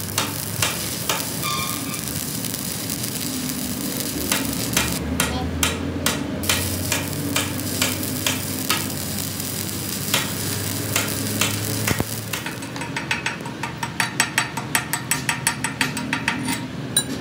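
Stick (arc) welding electrode crackling and sizzling as weld beads are laid onto a truck's damaged rear axle spindle to build up the worn threads. In the last few seconds the sharp ticks come faster and louder.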